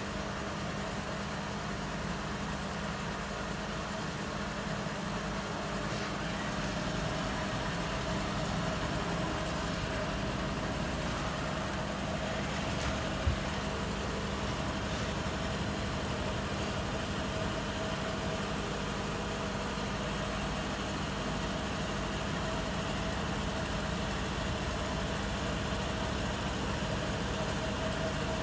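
Bosch WAT28370GB front-loading washing machine on its second intermediate spin: the drum spinning with a steady whirring hum, getting a little louder over the first several seconds. One brief low knock about halfway through.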